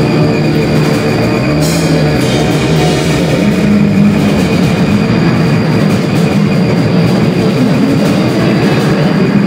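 Live band playing loud, dense rock-style noise music: a drum kit under amplified instruments, with low notes sliding up and down in pitch.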